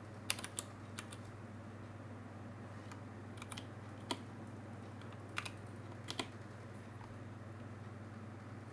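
Computer keyboard keystrokes, a few sharp clicks at a time with pauses of a second or more between them, as code is typed. A steady low hum runs beneath.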